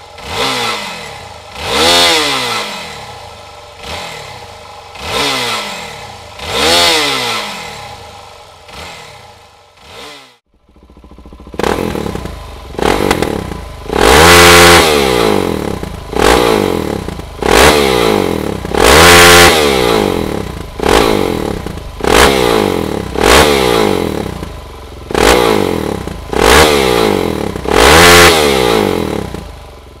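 Suzuki DR-Z400SM single-cylinder four-stroke engine being revved in short throttle blips while the bike stands still, each blip rising and falling in pitch. First about six blips through the stock exhaust, then, after a brief break about ten seconds in, a longer, louder run of blips through a Dominator MX aftermarket silencer.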